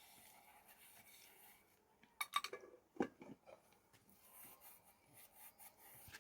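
Faint handling noises: a quick cluster of small knocks and clinks about two seconds in, and another about a second later, over low background hiss.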